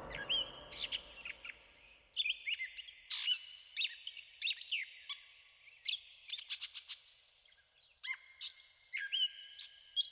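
Songbirds chirping and whistling: many short sliding notes, a quick rapid trill about six seconds in, and a few longer held whistles near the end.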